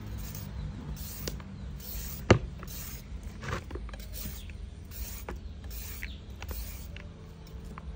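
Metal vegetable peeler scraping strips off a raw carrot in short repeated strokes, about one a second, with one sharp click a little over two seconds in.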